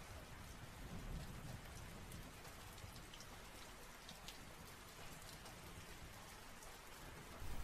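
Faint rain ambience: a steady hiss with scattered light ticks of drops.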